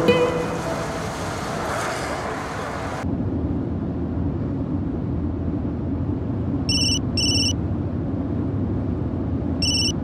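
Mobile phone ringtone: pairs of short, high electronic beeps starting about seven seconds in and coming again about three seconds later. Under it is the steady low rumble of a car's cabin on the move.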